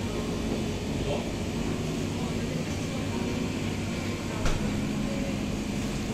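Supermarket ambience: a steady hum of air handling and refrigerated display cases under faint, indistinct voices, with one short knock about four and a half seconds in.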